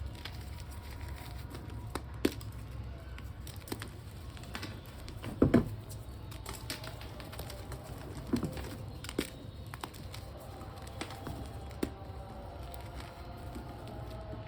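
Blocks of reformed gym chalk being crushed: scattered crisp crunches and crumbling clicks, with two louder crunches around the middle. A steady low hum lies underneath.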